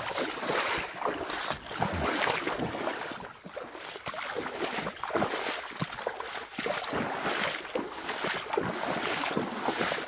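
Footsteps crunching and rustling irregularly through leaves and over rocks on a jungle trail, over a steady rush of flowing water.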